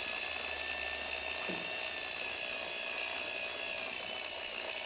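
Small electric motor running with a steady high-pitched whine, its pitch sagging slightly past the middle.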